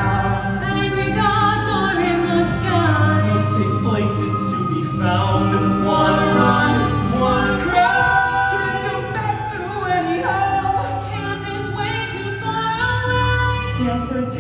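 Several voices singing a musical-theatre song in harmony, with long held notes over a steady low accompaniment.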